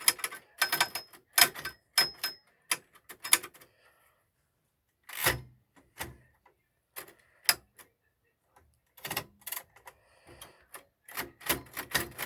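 Typewriter keys being struck, the typebars clacking in irregular runs of sharp strikes separated by short pauses.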